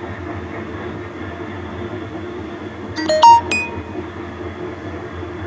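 Steady drone of helicopter rotor blade noise. About three seconds in, a brief cluster of sharp, ringing clinks is the loudest sound.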